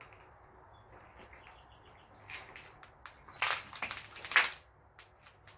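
Footsteps crunching over debris on a wrecked floor: a burst of irregular crunches from about two and a half to four and a half seconds in, the loudest near the end of it.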